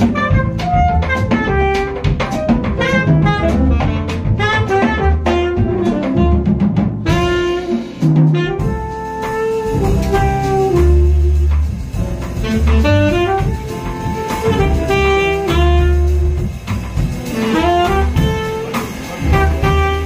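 Background jazz music with a saxophone melody over drums and bass.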